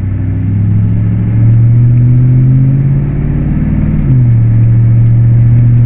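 Pickup truck engine accelerating while towing a trailer. The engine note climbs slowly, drops in a step about four seconds in, then holds steady.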